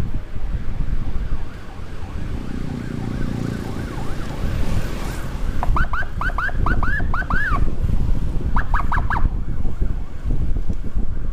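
Electronic siren sounding a run of quick rising whoops, about four a second, then a short, faster burst of four. Under it runs a steady rush of wind on the microphone and road noise from the moving motorcycle.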